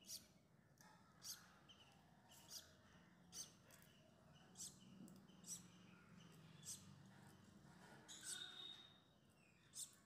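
Faint, sharp clicks of eggshell being picked and chipped away with a thin wooden stick, about one a second: an assisted hatching, the shell opened by hand to free a chick stuck inside.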